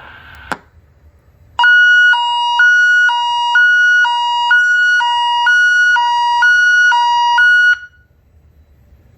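Fire alarm voice-evacuation speaker sounding the Hi/Lo alarm tone: two pitches alternating about twice a second for about six seconds, then cutting off. A short click comes just before it starts.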